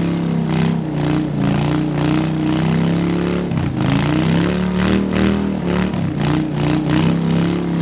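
An engine running at a steady speed, its pitch sagging briefly twice and recovering.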